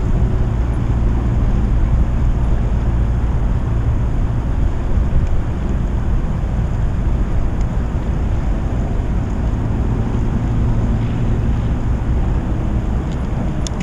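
Steady low rumble of wind buffeting a kayak-mounted action camera's microphone, with a few light clicks near the end.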